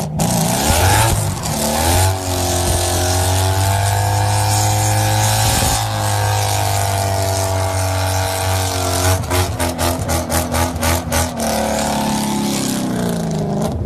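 Ford Mustang engine revving up and held at high revs during a burnout, with tyre squeal over it. Later the engine note breaks into rapid pulses, about six a second, before the revs drop away near the end.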